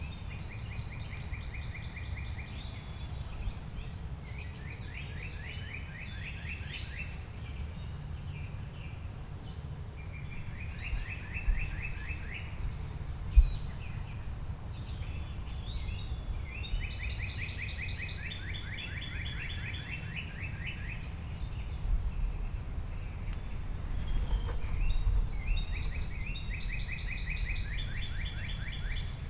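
Songbirds singing repeated trilled songs with some rising notes, over a steady low outdoor rumble. A single sharp knock stands out about thirteen seconds in.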